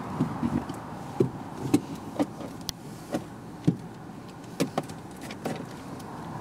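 Leather gloves creaking and squeaking in short, irregular bursts as they grip and rub the steering wheel, over a steady background hum.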